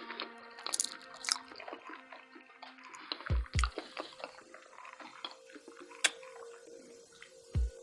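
Wet, close-up eating sounds of someone chewing a burrito: many small mouth clicks and smacks. Under them runs soft electronic background music with steady held tones and a pair of deep bass beats about every four seconds.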